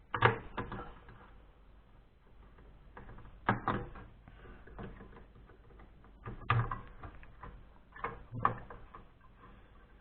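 Parts of a desktop PC being handled while it is taken apart: a handful of separate sharp knocks and clunks, one near the start, one about three and a half seconds in, one about six and a half seconds in and two close together near eight seconds.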